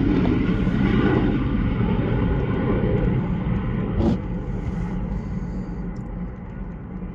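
Low rumble of a jet aircraft, fading gradually over several seconds as it moves away. A single click about four seconds in.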